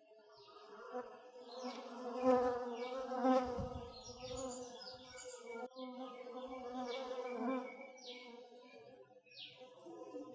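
A fly buzzing in flight, its wavering drone swelling louder and fading again.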